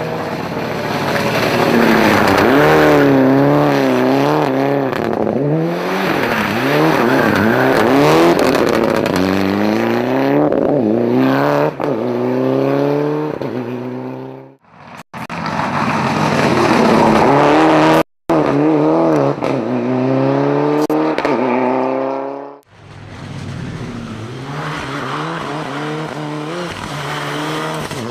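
Mitsubishi Lancer Evolution rally car's turbocharged four-cylinder engine revving hard, its pitch climbing and dropping again and again through gear changes as the car passes at speed. The sound breaks off abruptly twice midway at edits, and the last few seconds are quieter.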